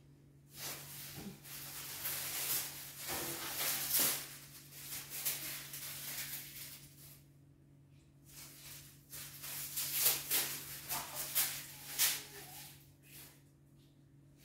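Dry coconut palm straw and kindling rustling and crackling as a wood-burning stove fire is lit. It comes in two spells of hissy noise with sharp crackles, with a short lull between them.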